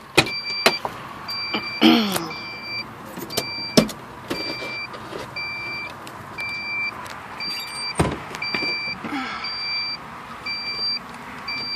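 Kia's dashboard warning chime beeping steadily, about two beeps a second, as it does with the driver's door standing open. A few knocks and thumps from movement in the driver's seat, the loudest about eight seconds in.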